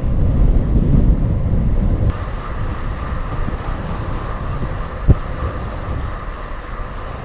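Heavy wind buffeting and road noise from a bicycle descending at speed into a headwind. About two seconds in the sound changes abruptly to a thinner, cleaner recording with less low rumble and a steady mid-pitched hum. A single short thump comes about five seconds in.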